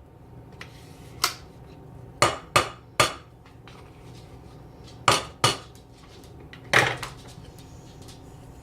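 A kitchen utensil knocking against cookware, about seven sharp knocks at irregular spacing, some in quick pairs, as sour cream is spooned and stirred into mashed cauliflower.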